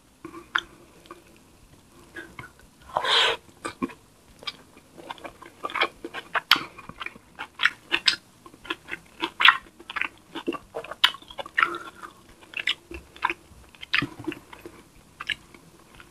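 Close-miked chewing and wet lip-smacking while eating tilapia in coconut milk with rice by hand, with many short sharp mouth clicks. A longer noisy mouth sound comes about three seconds in.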